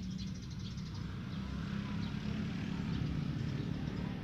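Steady low engine hum, like a motor vehicle running nearby, growing slightly louder, with a few faint bird chirps.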